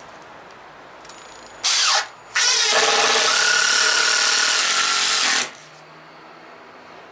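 Cordless drill working into a timber sleeper: a short burst, then after a brief pause a longer steady run of about three seconds that stops suddenly.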